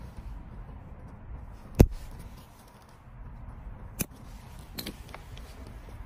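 Side cutters snipping the excess strands of a tubeless tyre repair plug flush with a scooter tyre's tread: a few sharp clicks, the loudest about two seconds in, another at four seconds and a small quick cluster just after.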